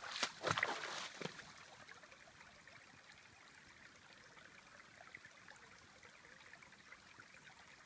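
Feet wading and splashing in shallow, calm sea water, a few splashes in the first second or so, then a faint trickle as a hand dips into the water.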